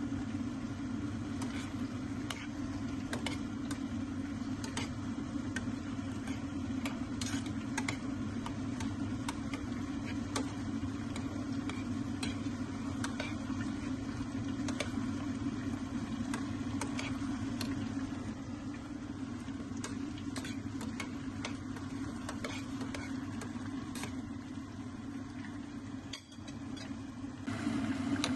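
A pot of chopped red chillies, red pepper and onion simmering in water, with many small pops and clicks over a steady low hum, and a metal spoon stirring in the pot.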